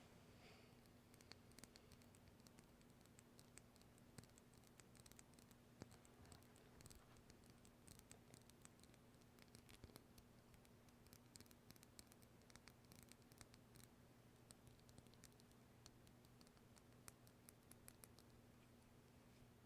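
Faint, irregular light clicks and scratches from small objects being handled close to the microphone, over a steady low hum.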